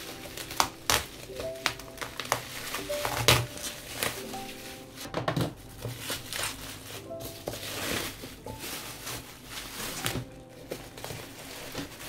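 Plastic bubble wrap crinkling and rustling as it is torn and pulled off a parcel by hand, with many sharp clicks and crackles. Light background music with a plinking melody plays throughout.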